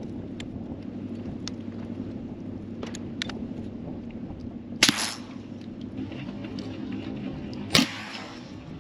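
Two suppressed shots from a 300 Blackout single-shot pistol fitted with a Dead Air Nomad-LT suppressor: two short, sharp cracks about three seconds apart, over a steady low hum.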